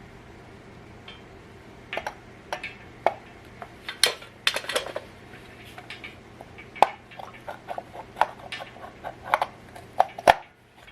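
Metal hand tools clinking and clicking against the engine in irregular, sharp strikes, as the distributor is worked loose from a Dodge 5.2 Magnum V8. Quiet at first, the clinks start about two seconds in, with the sharpest one near the end.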